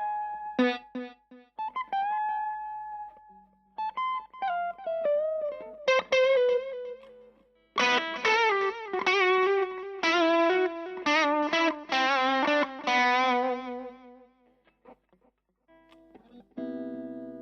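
Electric guitar, a Fender Stratocaster through a Vox AC4TV valve amp at its quarter-watt setting with delay from a Line 6 TonePort UX2, playing single-note lead lines. Some of the notes are bent and held with vibrato. Near the end a chord is struck and left ringing.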